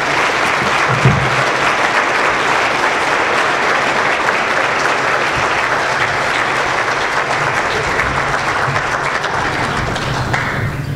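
Audience applauding steadily, dying down near the end, with a single low thump about a second in.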